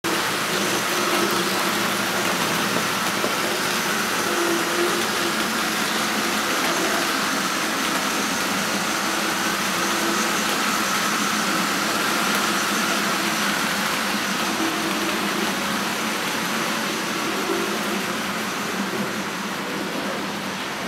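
00 gauge model trains running: the steady whir of small electric motors with the rumble and clatter of wheels on the track, a faint hum wavering in pitch throughout.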